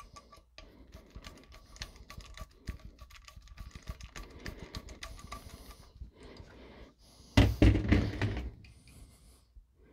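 Hand screwdriver turning a screw on a round sheet-metal electrical box, a run of small metal clicks and scrapes. About seven seconds in comes a louder rattle lasting about a second as the metal box is handled.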